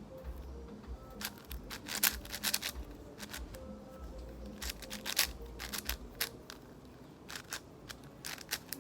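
MGC 6x6 speed cube being turned during a solve: irregular plastic clicks and clacks of its layers, several of them sharper than the rest.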